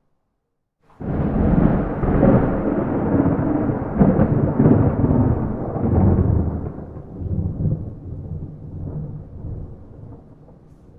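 A thunderclap without rain: a sudden loud crack about a second in, then rolling rumbles that swell a few times and slowly fade away.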